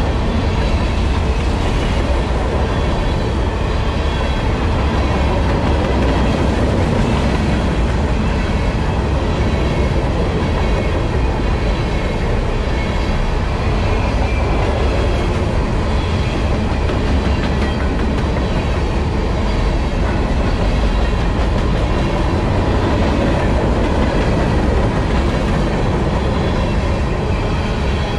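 Freight train of CSX covered hopper cars rolling past close by: a steady, unbroken rumble of steel wheels on the rails.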